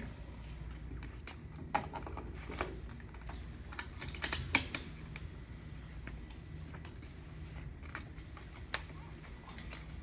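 Scattered sharp clicks and taps as a multimeter and its test leads are handled, with a quick cluster about four seconds in, over a low steady hum from a mini fridge's hermetic compressor, which is humming without spinning.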